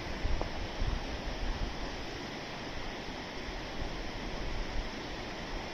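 River water rushing steadily, with gusts of wind buffeting the microphone now and then.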